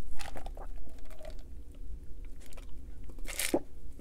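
Gulps and swallows of cold soda drunk from a glass bottle, close to the microphone, with small wet mouth clicks between them; the loudest gulp comes near the end.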